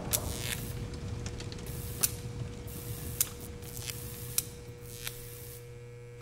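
Electrical buzz sound effect of a flickering neon sign: a steady low hum with a thin buzzing tone, broken by irregular sharp crackles. It slowly fades and cuts off abruptly at the end.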